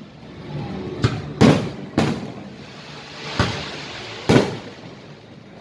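Fireworks display overhead: about five sharp bangs of bursting shells, the loudest about a second and a half in and again near the end, each echoing briefly over a steady background rumble.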